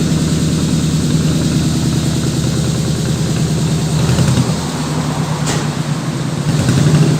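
Truck engine running steadily, its pitch and load shifting about four seconds in, with a sharp click about five and a half seconds in.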